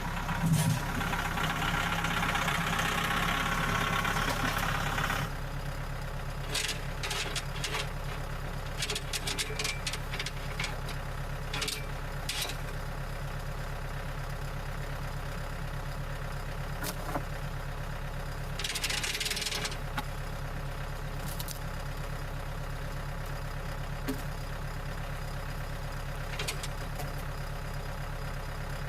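An engine idling steadily, running louder for about the first five seconds before dropping back to idle. Scattered clanks and knocks, and a short hiss-like burst past the middle, sound over it.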